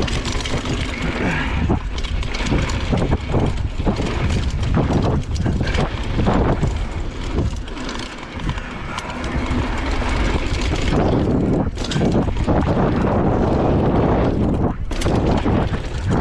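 Mountain bike riding fast down a dirt jump trail: wind buffeting the microphone over tyre rumble and a steady clatter of knocks and rattles from the bike on the bumps.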